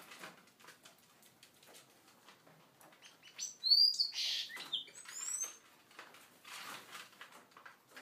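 Seagreen parrot finches giving short, high, thin chirps, bunched together from about three and a half to five and a half seconds in, with a brief loud rustle of wings in the middle. Soft scattered ticks and rustles from the birds feeding at the dish come before and after.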